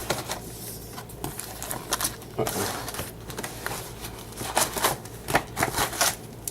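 Trading-card packaging being torn open and handled, with a crinkling wrapper and a quick run of light clicks and crackles, thicker in the second half.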